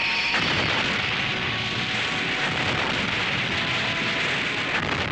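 A film explosion sound effect: a long, even rush of blast noise with no separate bangs, as a missile strike blows up a tank-like machine.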